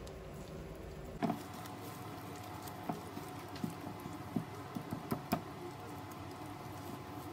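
Silicone spatula stirring and scraping egg and corned beef around a nonstick frying pan, with scattered light knocks of the spatula against the pan.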